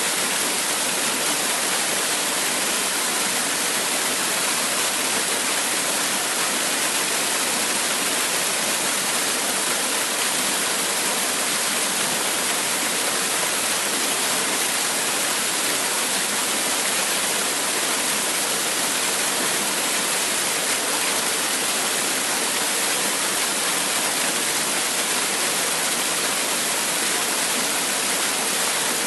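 Waterfall: water falling and splashing in a steady, unbroken rush, with most of its sound in the hiss and spray rather than in a low rumble.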